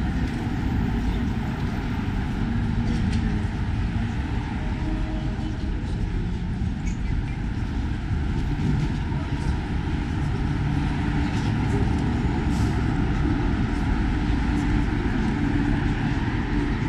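Steady road traffic on a busy city avenue, a continuous low rumble of passing cars and buses.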